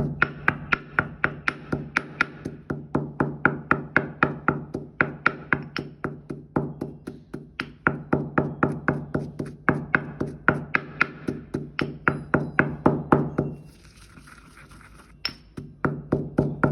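Pestle pounding in a metal mortar, about four even strikes a second, the vessel ringing with a steady low tone. The pounding stops about thirteen seconds in and starts again near the end.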